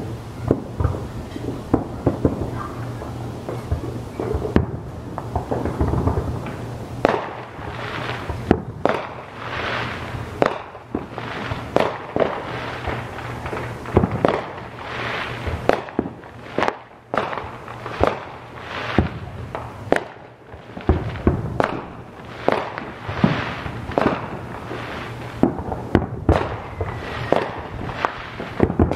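Aerial fireworks shells bursting in quick succession, a long string of booms, each trailing off. The bursts come faster and louder from about seven seconds in.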